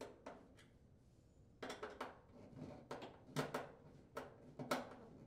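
Faint metallic clicks and taps of a 1/4-inch nut driver working the screws along the bottom of a dryer's front panel, a few a second with a short pause about half a second in.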